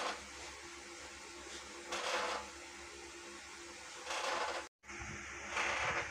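Wire whisk stirring pancake batter in a plastic bowl: short scraping, brushing strokes about every two seconds over a steady background hum, with a brief break in the sound just before the last strokes.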